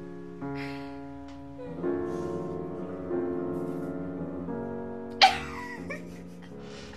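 Background piano music playing slow sustained chords. About five seconds in, one short, sharp sound cuts in over it, louder than the music.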